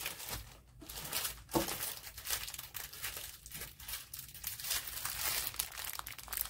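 Plastic packaging crinkling as hands handle and unwrap plastic-bagged diamond painting drill packets and a plastic-sleeved rolled canvas, with a short knock about one and a half seconds in.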